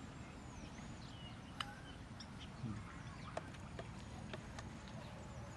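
Birds chirping in short whistled glides, with a few light clicks of a metal spoon against a steel mixing bowl as shredded green mango is tossed.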